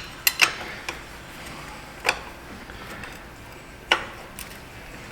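Several separate metallic clicks and clinks of hand tools against engine hardware, a few with a short ring.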